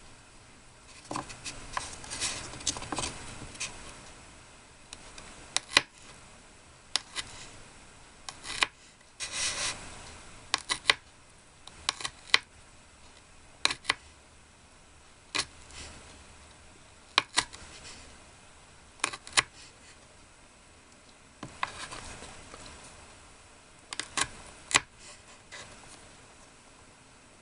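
Small utensils and tools handled at close range: scattered sharp clicks and light taps, some in quick pairs, with a few short stretches of rubbing and scraping.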